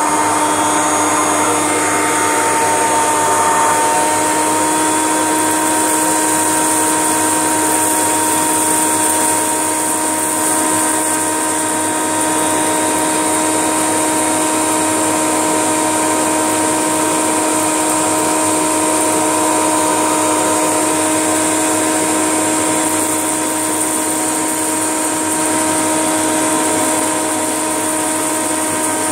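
Kirby G6 upright vacuum running with its hose attachment: a steady motor whine over a high hiss of rushing air, its pitch settling about four seconds in. Uncooked rice crunches and rattles as it is sucked up the hose.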